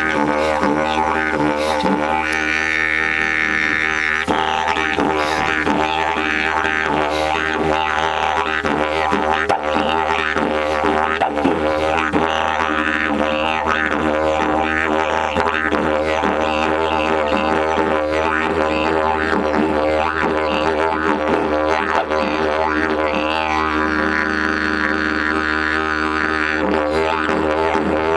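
Yellowbox eucalyptus didgeridoo, 142 cm long and tuned to D#, played as one continuous drone with rhythmic pulses running through it.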